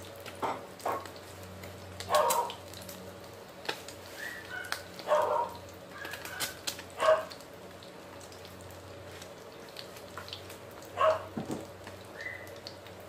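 Omelette frying in oil in a pan: a soft steady sizzle with scattered crackles. Over it come four short, loud animal calls, spread out, and a few brief higher chirps.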